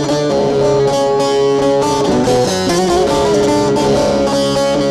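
Instrumental interlude of a Turkish folk song (türkü): a bağlama (long-necked saz lute) plays the melody over the band's accompaniment.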